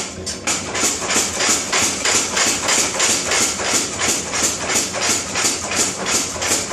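Power hammer striking hot steel in a fast, steady rhythm of about three to four blows a second, over the hammer's steady running hum.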